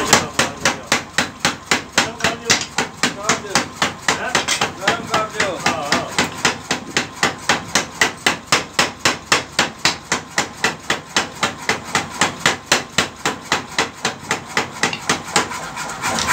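A 16 kg mechanical power hammer striking red-hot steel in a fast, even rhythm of about four blows a second, forging a tractor blade's edge thin to sharpen it.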